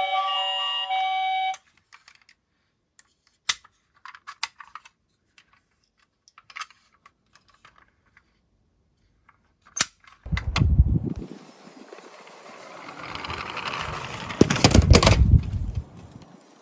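A short music jingle ends about a second and a half in, followed by a few scattered light plastic clicks. About ten seconds in, Tomica die-cast minicars start rolling down a toy slope, a rolling rumble that builds to its loudest near the end.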